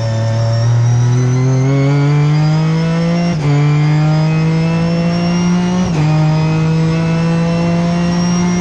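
Ginetta G55 race car engine heard from inside the cockpit, accelerating hard: the pitch climbs, drops sharply at an upshift about three and a half seconds in, climbs again, and drops at a second upshift about six seconds in before rising more slowly.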